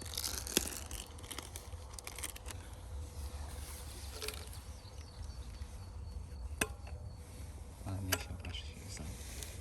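Outdoor ambience: a steady low rumble with a few sharp clicks spread through it.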